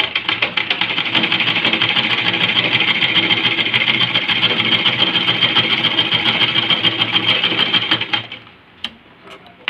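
A domestic straight-stitch sewing machine stitching steadily at speed with a fast, even ticking. It is sewing a test seam after its loose presser foot was tightened, and the stitches are now forming evenly. It stops about eight seconds in, followed by a couple of faint clicks.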